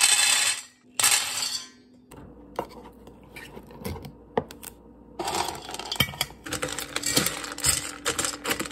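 Dry kibble poured into a stainless steel dog bowl in two short rattling bursts, about a second apart. Then a metal spoon clicks against a can of wet dog food, and it clatters against the bowl as it stirs the wet food through the kibble.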